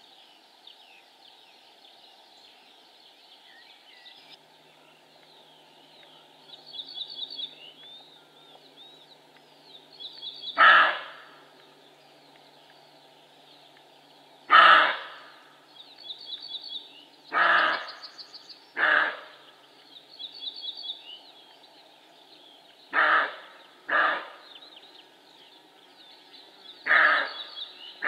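Roe deer buck barking: about seven short, loud barks at irregular intervals, the first about ten seconds in, with two pairs close together. A small bird sings short high trills in between.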